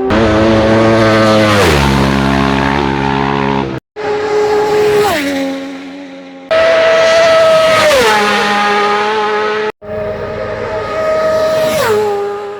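Supersport racing motorcycles passing at full throttle one after another, each engine note dropping sharply in pitch as the bike goes by, about four passes in all. The sound cuts out abruptly twice between passes.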